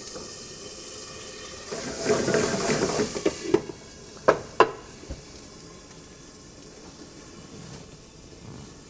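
Tomato sauce sizzling in a lidded pan over a high gas flame as it reduces. The sizzle flares up louder for about two seconds, then two sharp clicks come close together, and a steady, lower sizzle and hiss follows.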